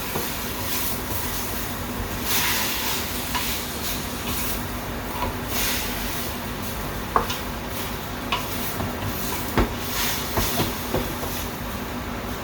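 Chicken and cabbage stir-frying in a pan, sizzling steadily, with a cooking utensil stirring and clicking sharply against the pan now and then.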